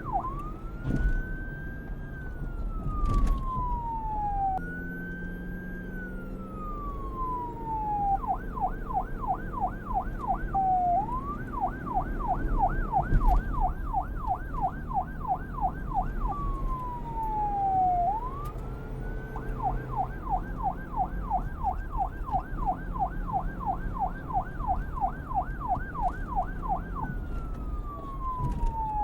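Electronic police car siren switching back and forth between a slow wail, rising and then falling over a few seconds, and a rapid yelp of about four sweeps a second, over a low rumble.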